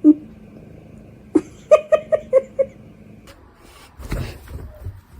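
A cat giving a quick run of about five short, pitched meows, roughly four a second, after a single call just before. A muffled bump follows a little later.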